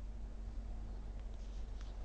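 Steady low rumble of wind on the microphone, with a few faint high ticks past the middle.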